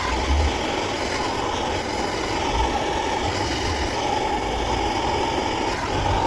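MAP gas torch burning with a steady roar, heating a copper pipe fitting to solder the joint.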